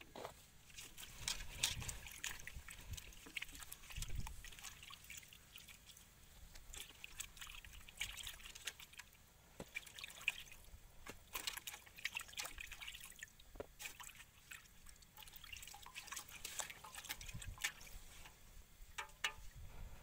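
Water splashing, dripping and trickling as yard-long beans, a tomato and eggplants are washed by hand in a water-filled aluminium basin, in irregular light splashes.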